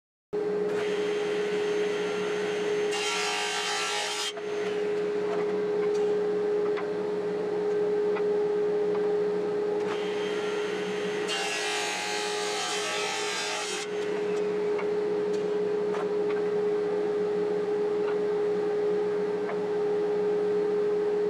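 Benchtop table saw running with a steady whine while wood is fed through the blade twice: a short cut about three seconds in and a longer one from about eleven to fourteen seconds.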